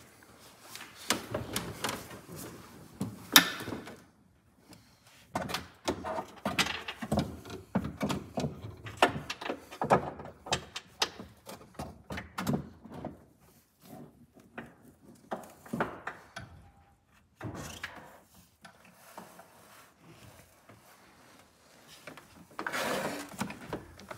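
Irregular knocks, clicks and clatter of hands and tools handling parts in a car's engine bay, with one sharp knock about three seconds in.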